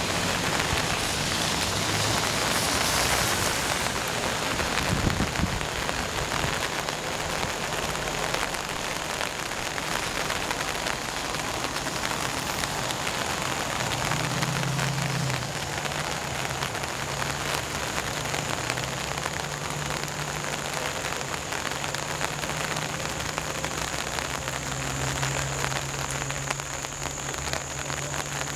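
Steady rushing noise of water, loudest in the first few seconds, with a faint low hum that comes and goes.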